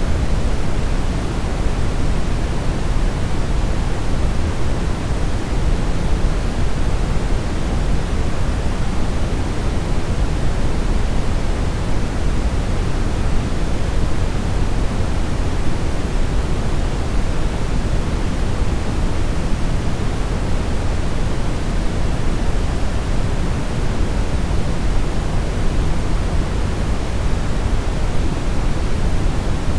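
Steady brown noise: an even, unchanging hiss weighted heavily toward the low end, a deep rumble with softer highs.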